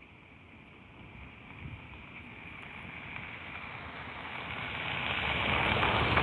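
A rushing noise without any clear tone that swells steadily louder from faint to fairly loud.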